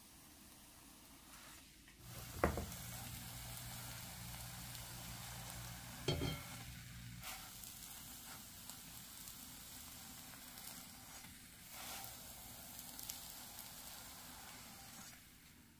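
Oil sizzling under a freshly fried potato pancake, with two sharp metal knocks about two and a half and six seconds in.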